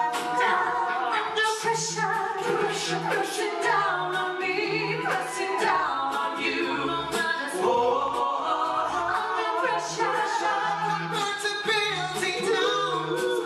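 A cappella vocal group singing live: several voices in harmony over a bass voice repeating short low notes, with evenly paced vocal percussion and no instruments.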